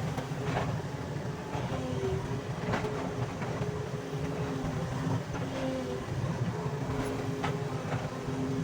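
Hydraulic excavator's diesel engine running steadily under working load, with a hydraulic whine that steps up and down in pitch. A few sharp cracks or knocks come through, about three in all.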